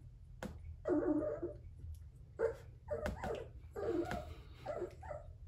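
Two-week-old F1b Goldendoodle puppies crying, about six short, wavering calls spread over a few seconds.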